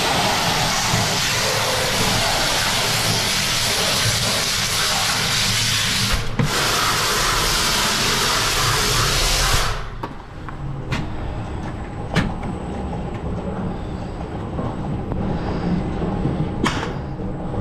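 High-pressure water jet spraying inside a stainless steel tanker compartment through the top manhole, a loud steady hiss that breaks off briefly about six seconds in and then cuts off after about ten seconds. This is the rinse that pushes the last of the thick product out of the tank. A low hum with a few sharp clicks follows.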